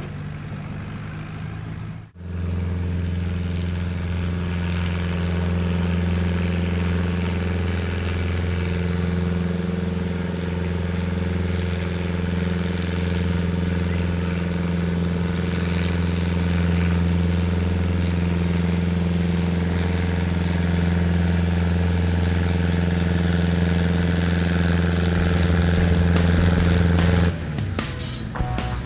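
Old Deutz tractor's diesel engine held at steady high revs under full load while pulling a weight-transfer sled, a constant drone that grows slightly louder. It cuts off abruptly near the end.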